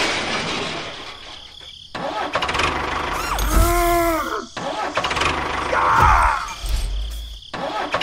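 Engine sound of a toy tractor, in snatches that cut off abruptly, with a pitched tone that rises and falls about three and a half seconds in.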